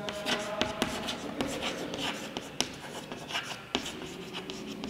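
Chalk writing on a chalkboard: scratchy strokes broken by sharp taps as the chalk meets the board.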